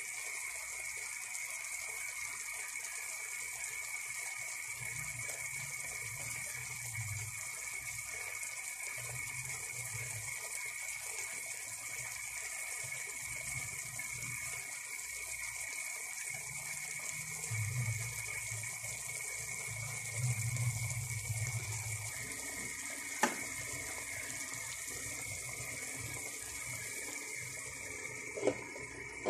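Chicken and pineapple chunks sizzling steadily in a steel wok. Near the end a metal lid is set on the wok with a short clank, and the sizzling is muffled.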